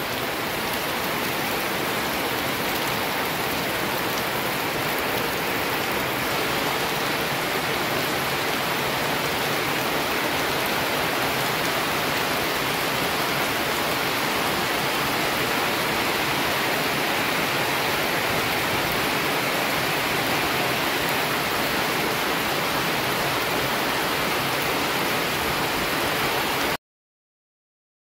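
Steady rain falling on a wet paved road and into puddles, cutting off suddenly near the end.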